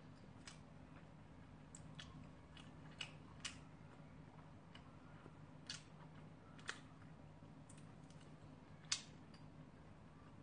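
Quiet eating: scattered light clicks and taps of wooden chopsticks on takeout bowls and the chewing of rice cakes, the sharpest click about nine seconds in, over a faint steady low hum.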